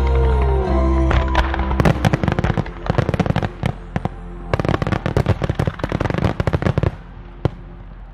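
Show music with sustained chords plays at first. About two seconds in, a dense barrage of fireworks starts: many sharp bangs and crackles in quick succession as a wide line of shells bursts. It thins to a few single reports near the end.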